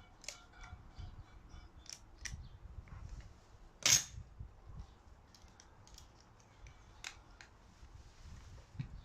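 Scattered light clicks and clinks of metal parts and tools being handled, with one sharp, loud click about four seconds in.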